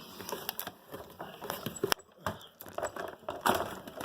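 Scattered light plastic clicks and rustling from hands working the Kirby vacuum's bag fitting.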